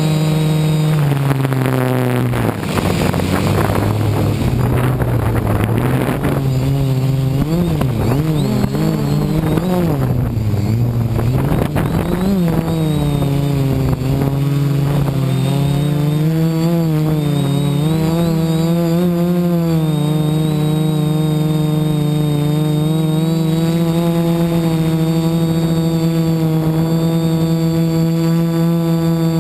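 DJI F450 quadcopter's brushless motors and propellers buzzing loudly, heard from its onboard camera. The pitch drops about a second in, wavers up and down until about twelve seconds in, then holds nearly steady.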